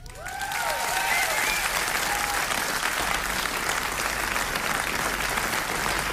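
Concert audience applauding and cheering. The applause swells in over the first second and then holds steady, with a few rising-and-falling whoops in the first couple of seconds.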